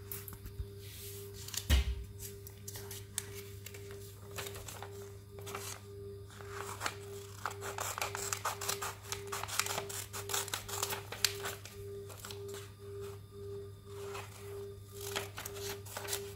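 Scissors snipping through a sheet of paper, with a dense run of quick cuts in the middle. One thump comes near the start. Under it all there is a steady low hum and a faint tone pulsing a little over twice a second.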